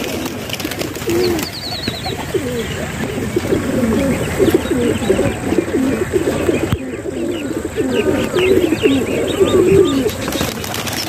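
Domestic pigeons cooing, many overlapping calls at once in a steady low warbling chorus. Short high chirps join in during the second half.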